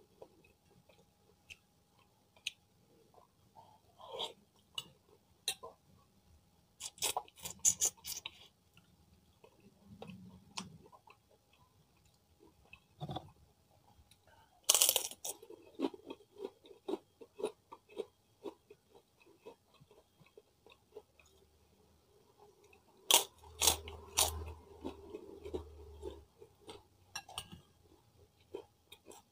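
Kerupuk crackers being bitten and chewed together with chicken porridge. Several bouts of crisp crunching, the loudest about 15 and 23 seconds in, with softer chewing between.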